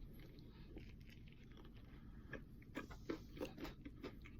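Faint chewing of a mouthful of fried chicken sandwich, with a run of short, irregular clicks starting about halfway through.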